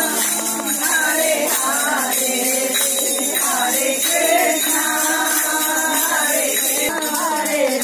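Devotional song: voices singing over the steady jingle of a tambourine.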